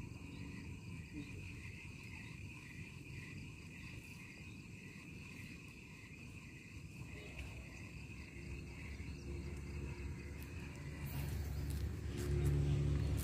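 Insects chirping in a high, pulsing trill that repeats a few times a second, fading after about seven seconds. Near the end a low rumble with a hum swells up and becomes the loudest sound.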